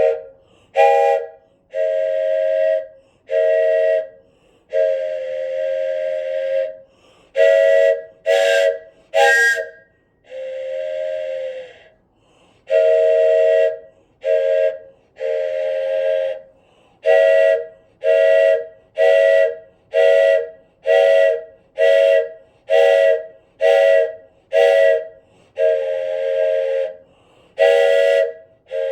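Wooden train whistle blown over and over, each blast a breathy chord of a few close pipe tones. The blasts mix longer blows of a second or two with quick toots, and near the end they settle into a run of short toots at about one a second.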